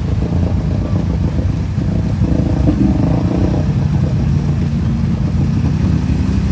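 Off-road vehicle engine running hard, its pitch rising and falling a little as the throttle changes.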